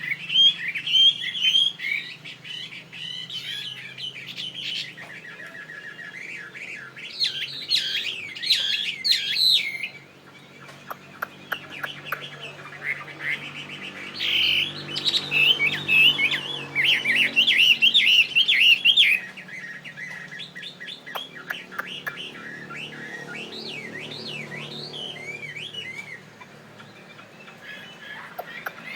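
Chinese hwamei (hoạ mi) singing loud, rapid phrases of varied whistles. The strongest bouts come at the start, about seven seconds in and about fourteen seconds in, with softer song between.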